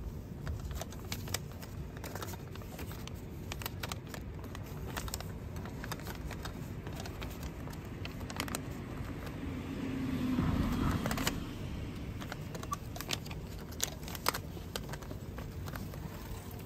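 A 1,000-yen banknote is pushed into a vending machine's bill acceptor again and again and refused: crisp paper rustling and small clicks from the plastic slot flap, with a louder stretch about ten seconds in. A low traffic hum runs underneath.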